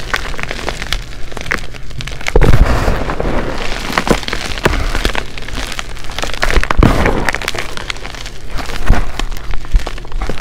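Gym chalk being crushed and crumbled by gloved hands: dense, continuous crunching and crackling of breaking chalk, with a couple of heavier thumps.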